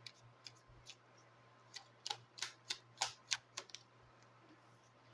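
Faint, irregular sharp clicks and taps of cigano (Lenormand) cards being handled and laid down on the table, busiest about two to four seconds in.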